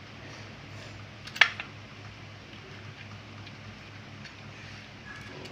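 One sharp click about a second and a half in, with a few faint ticks, over a steady low hum: handling noise from wiring work as a wire is fastened to a switch terminal on a switch-and-socket board.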